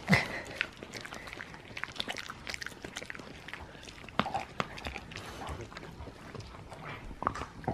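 Siberian husky chewing a hard alligator-shaped dental chew at close range: an irregular run of crisp crunches and teeth clicks, the loudest right at the start.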